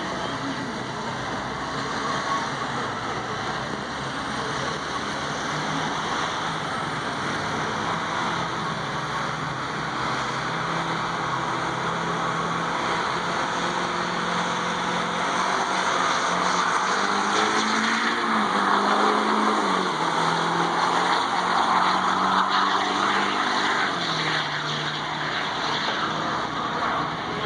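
Diesel pickup truck on a drag strip running at the line, then launching at full throttle. In the second half the engine note climbs and drops back several times as it shifts up through the gears.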